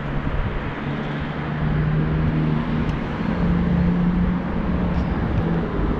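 Road traffic on a busy road: steady tyre noise with an engine hum that grows louder about two seconds in and rises in pitch about halfway through.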